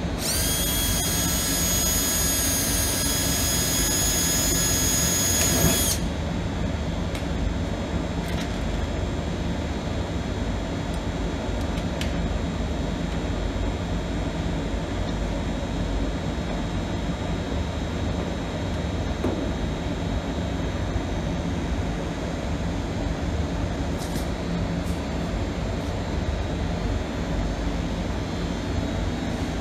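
A small motor whines at one steady high pitch for about six seconds, then cuts off sharply. After it comes a steady low hum with a few faint clicks.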